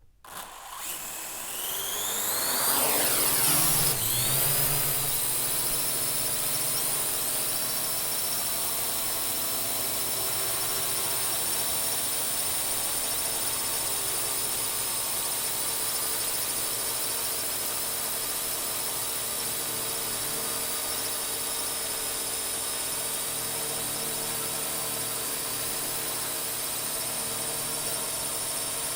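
A drone's motors and propellers spinning up from a standstill, the whine rising in pitch and loudness over the first three or four seconds, then settling into a steady whine as it flies.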